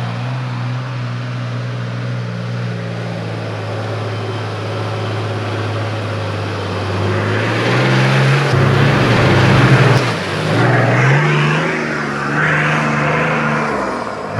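Nissan Patrol four-wheel drive climbing a dirt hill: its engine runs steadily at first, then from about seven seconds in revs harder and louder, its pitch rising and falling under load, with a rush of noise as it comes up the slope.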